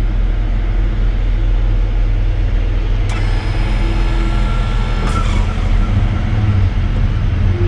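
Vehicle engine running steadily, with two sharp clicks, one about three seconds in and another about five seconds in.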